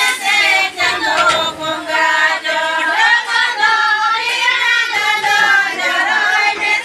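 A group of women singing a Santali folk song together, several voices holding long notes in unison.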